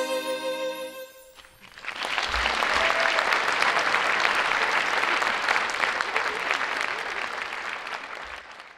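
A held closing chord of music fades out in the first second or so, then an audience applauds, the clapping slowly tapering off near the end.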